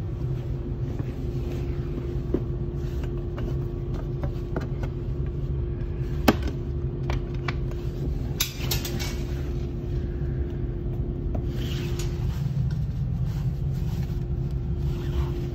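Rubbing, clicks and knocks from the camera being handled against a seat and its fold-down table, with one sharp knock about six seconds in. Underneath runs the steady low rumble and hum of the passenger saloon of a Škoda RegioPanter electric multiple unit.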